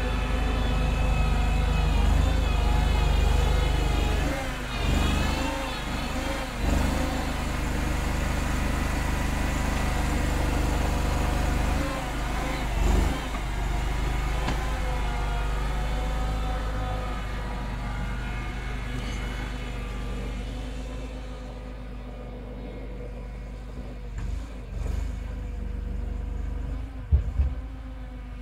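Homemade wheel loader's engine running as the machine works snow, its speed rising and falling under load and then settling and growing fainter. A couple of sharp knocks come near the end.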